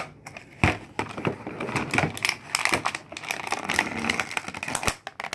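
Stiff clear plastic blister packaging crackling and snapping as a toy figure is pried out of it, in a fast, irregular run of sharp crackles and clicks.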